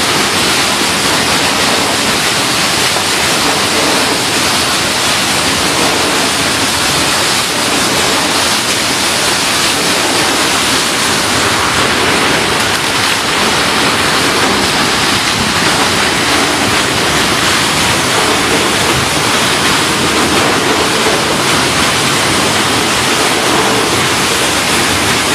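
Chili stem cutting machine running with a steady, even rushing noise.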